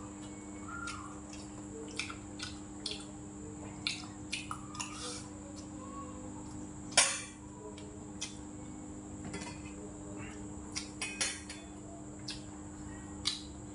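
Spoon and chopsticks clicking and clinking against bowls and plates while eating, irregular light taps with one louder ringing clink about seven seconds in. A steady low hum runs underneath.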